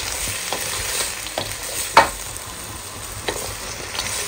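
Frozen mixed vegetables, shrimp and chicken pieces sizzling in a hot pan. A wooden spatula stirs them, with a few short scrapes and knocks against the pan, the sharpest about two seconds in.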